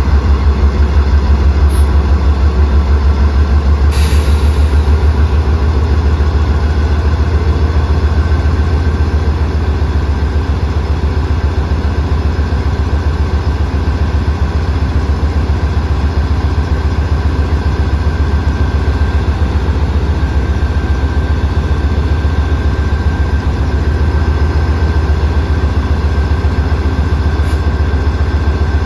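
GE diesel freight locomotives running near idle, with a deep, rapidly pulsing engine note. There is a brief click about four seconds in.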